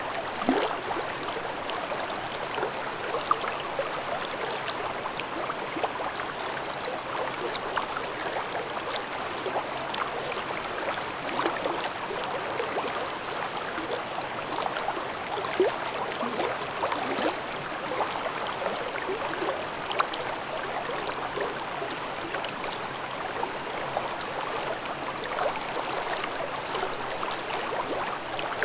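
Mountain stream babbling over rocks: a steady rush of water with small splashes and gurgles throughout.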